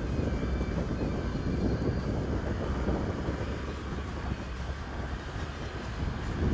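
A 4WD vehicle driving over beach sand, heard from inside the cabin: a steady low rumble of engine and tyre noise.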